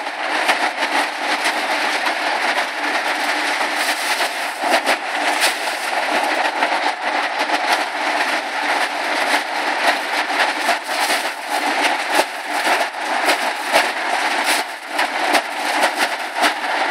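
Ear corn rattling down a sheet-metal chute onto a running chain drag conveyor and elevator: a continuous clatter of cobs and loose kernels knocking on metal, with the conveyor chain rattling underneath.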